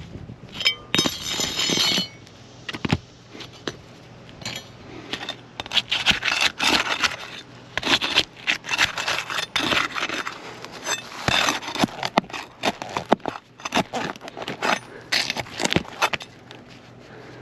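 A roofing tool scraping and prying under asphalt shingles to pull roofing nails, with irregular sharp clicks and crackling scrapes as the sealed-down shingle course is worked loose.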